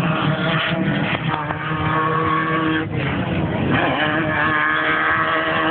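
Off-road race vehicle engines running loud and steady, with a brief drop about three seconds in.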